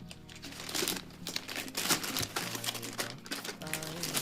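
Packaging being handled and crinkled, with irregular rustling and crackling as the parcel is opened.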